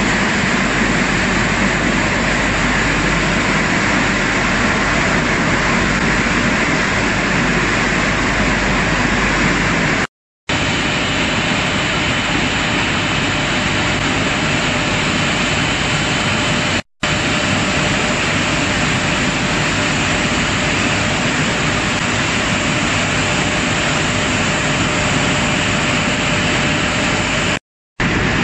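Mineral processing plant machinery running, vibrating screens among it: a steady, loud hiss and drone. It cuts out for a moment three times, and after about ten seconds a faint steady whine joins it.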